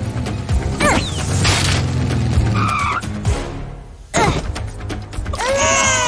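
Cartoon background music with a steady bass beat and a few quick falling whistle-like effects. A sudden crash about four seconds in, then cartoon babies start wailing near the end.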